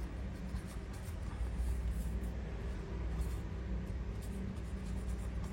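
Faint scraping and light handling of a metal Zippo lighter over a steady low hum.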